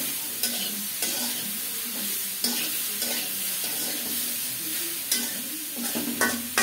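Bitter gourd and carrot frying in a little oil in a pan, with a steady sizzle as a spatula stirs them, knocking against the pan every second or so.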